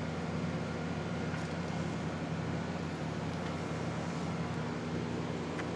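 Steady low hum of room air conditioning running, with a faint click near the end.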